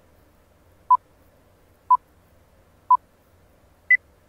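Electronic countdown beeps: short, clean tones about a second apart at one pitch, then a final, higher beep near the end, the 'go' beep that closes the countdown.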